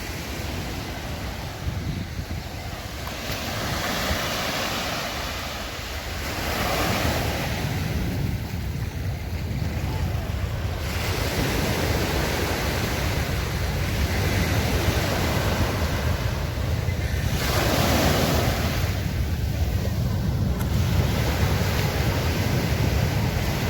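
Surf on a sandy beach, the sea noise swelling several times as waves break and wash in, with wind rumbling on the microphone.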